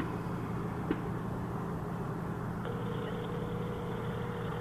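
Two distant gunshots about a second apart, the first right at the start: a stand hunter shooting at a deer. Under them runs the steady low hum of an idling vehicle, and from about two and a half seconds in a phone's ringing tone sounds as a call goes through.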